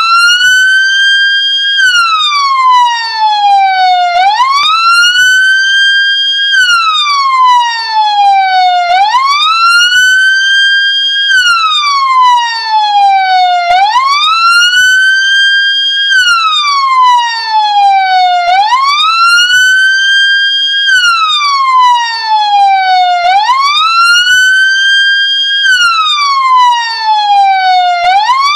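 Ambulance siren sounding a steady wail: each cycle rises quickly for about two seconds, holds briefly at the top, then falls more slowly, repeating about every four and a half seconds.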